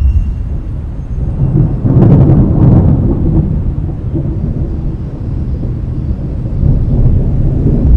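Thunder rolling: a deep, steady rumble that swells with a crackle about two seconds in, then eases back.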